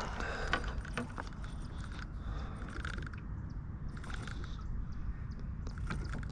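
Scattered light clicks and ticks of a fishing reel and rod being handled as the line's depth is set, over a steady low rumble.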